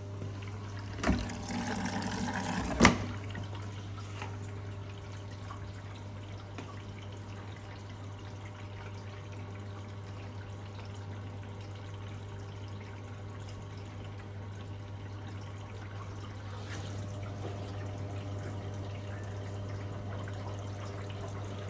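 Washing machine starting its cycle: a click, then water rushing in for about two seconds, cut off by a sharp click, over a steady low hum.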